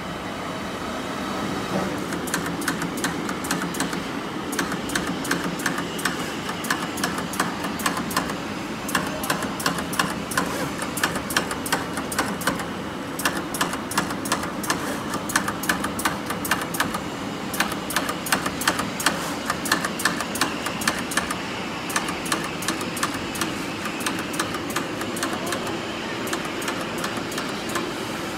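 CNC oscillating knife cutting machine running: a steady mechanical hum with rapid, irregular sharp clicking, several clicks a second, starting about two seconds in.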